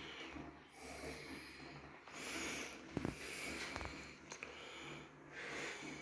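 Quiet breathing close to the microphone, coming in soft swells about a second long, with a couple of faint clicks about three seconds in.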